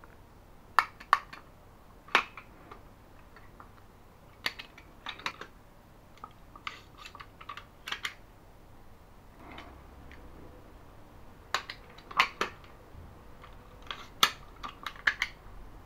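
A desk stapler handled and reloaded by hand: a string of sharp clicks and snaps in small clusters as it is opened, a strip of staples slotted into its magazine, and parts snapped back into place.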